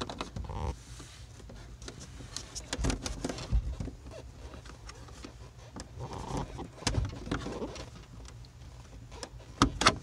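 Scattered clicks and rubbing of fingers pushing a bungee cord through a small hole in a fiberglass panel, close to the microphone, over a steady low hum.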